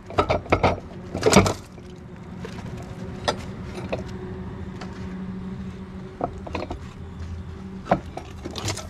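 A quick run of sharp knocks in the first second and a half, then a steady low mechanical hum with a few scattered clicks.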